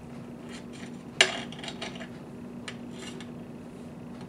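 Knife cutting through a tomato on a plastic cutting board: one sharp tap of the blade against the board about a second in, then several lighter taps and clicks.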